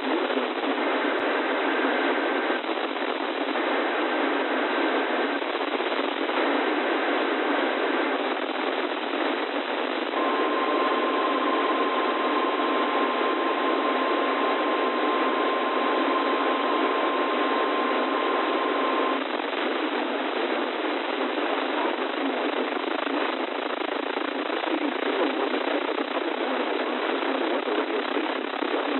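Heavy hiss of a weak NOAA Weather Radio signal received on a software-defined radio. Under the static, three faint data bursts of an EAS SAME header sound in the first eight seconds, then the steady 1050 Hz warning alarm tone sounds for about nine seconds. Together they mark the start of an alert broadcast.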